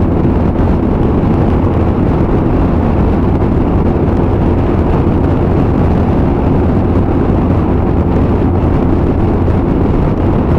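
Steady wind rush and engine and road noise from a motorcycle cruising at dual-carriageway speed, heard inside the rider's helmet, with wind coming in through the open helmet vents.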